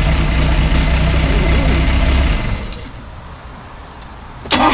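Carbureted inboard engine of an OMC Cobra sterndrive boat idling steadily, then switched off about two and a half seconds in and winding down. Near the end it is restarted and catches at once.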